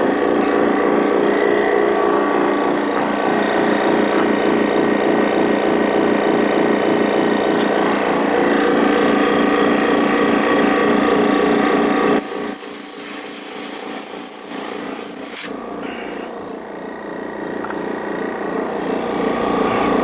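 Refrigerant recovery machine's compressor running with a rapid, even pulsing while pulling refrigerant out of an air conditioner. About 12 seconds in the running sound drops away and a loud hiss lasts about three seconds as the machine is switched over and purged, followed by quieter running that slowly builds.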